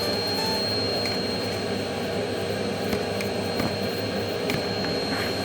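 Vacuum cleaner running steadily with a thin high whine over its rushing noise, used to clean a refrigerator.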